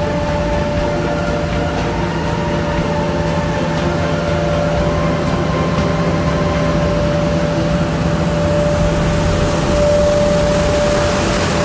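Dongfeng vacuum street sweeper truck working: its engines and sweeping gear run steadily, a low hum under a steady high whine, a little louder near the end.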